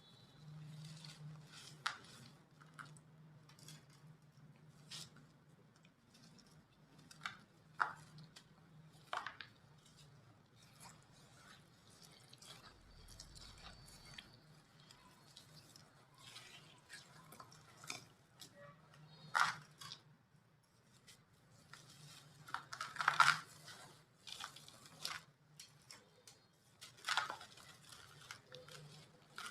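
Gritty mini chunks of set white cement being crumbled: irregular crisp crunches and crackles, a few at a time with gaps between, the loudest crunching a little after two-thirds of the way in.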